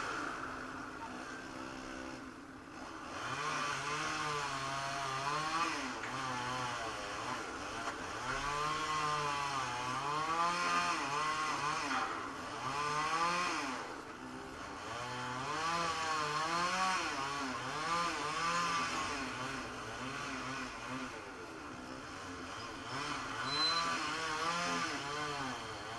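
Two-stroke chainsaw cutting up a fallen tree, throttled up and down again and again, its pitch rising and falling every second or two.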